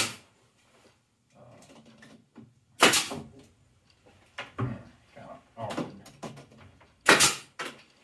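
Pneumatic quarter-inch crown stapler firing staples into a wooden beehive box: three loud shots, at the start, about three seconds in and near the end, each with a short puff of air. Between the shots come lighter knocks.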